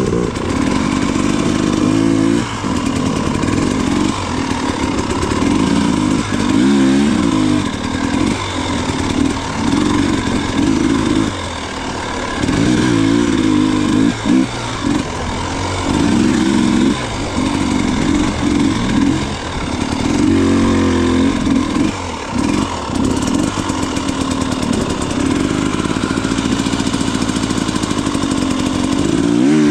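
Off-road motorcycle engine being worked on and off the throttle, its pitch rising and falling every one to three seconds over steady mechanical noise.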